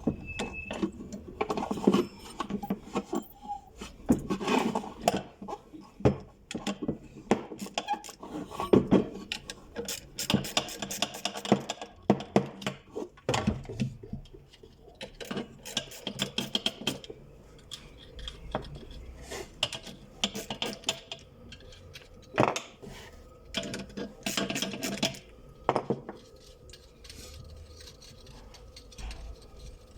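Metal parts and hand tools clinking, knocking and scraping in irregular clicks while a sewing-machine clutch motor is worked on.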